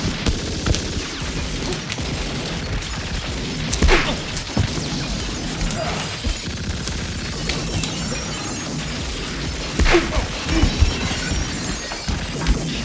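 Cinematic sound-effects mix: a dense, continuous clatter and rumble with sharp crashing impacts, one at the start, one about four seconds in and a pair around ten seconds in.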